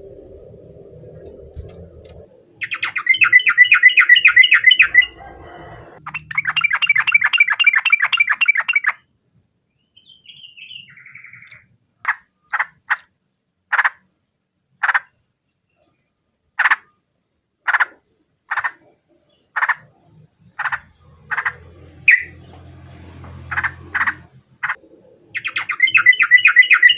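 Yellow-vented bulbul (trucukan) calling: two loud, fast bubbling chatter runs, then a string of single sharp notes about a second apart, then another chatter run near the end. A faint low hum lies underneath.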